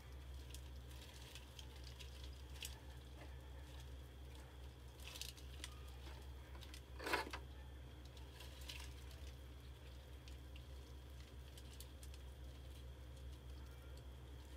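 Quiet room tone: a steady low hum with faint scattered ticks, and one brief rustle about halfway through.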